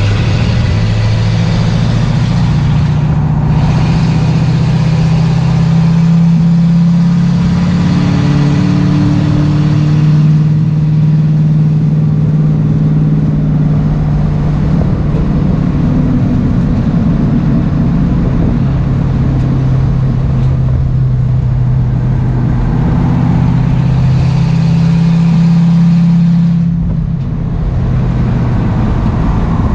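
Race car engine at hard throttle, heard from inside the stripped cabin, its note climbing through the revs and dropping back several times as the driver shifts and lifts, with a short dip about three seconds in and another near the end. Road and wind noise fill the cabin.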